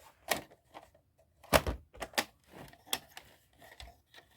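Plastic VHS tape and case being handled: a series of sharp clicks and knocks, about six in all, the loudest about a second and a half in.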